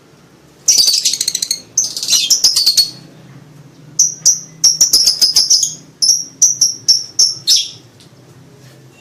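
Lovebird in breeding season calling: two harsh, rapid chattering bursts, then a quick series of short, sharp, high chirps that stops near the end.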